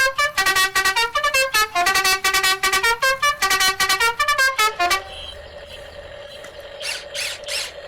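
A fast tune of short, bright pitched notes for about five seconds, then a quieter steady tone with a few short hissing puffs near the end.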